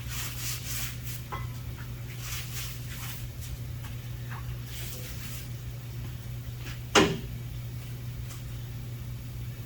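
Workshop handling noises over a steady low hum: a few short hissing swishes in the first half and one sharp knock about seven seconds in.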